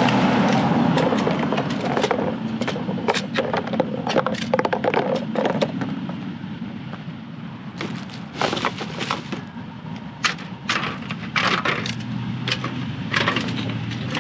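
Plastic and paper rubbish crackling and rustling as it is grabbed with a litter picker and pushed into a black plastic bin bag, with many sharp clicks and crinkles. Underneath, a van's engine runs steadily close by as the van reverses, loudest at the start.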